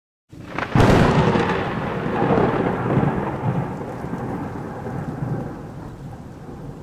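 Thunderclap: a sharp crack just under a second in, then a long rumble that slowly dies away.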